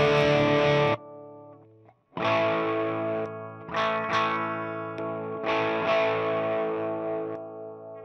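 Overdriven electric guitar played through a homemade Tube Screamer-style overdrive pedal into a Marshall amp. A sustained distorted chord is cut off about a second in, then after a short gap several chords are struck and left to ring out.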